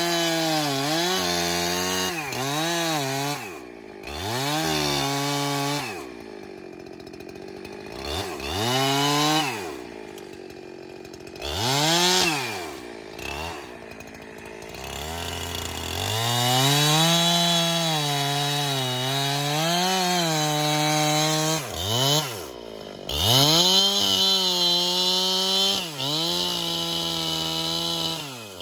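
Chainsaw cutting timber for posts: the engine revs up, sags in pitch as the chain bites into the wood, and drops back to a low idle between cuts, several times over.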